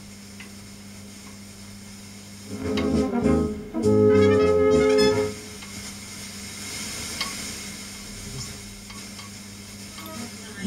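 Lorenz Goldklang 58 valve radio being tuned across the dial. A steady low hum and hiss sound between stations, and a station's music comes in loud from about two and a half to five seconds in before the hiss returns.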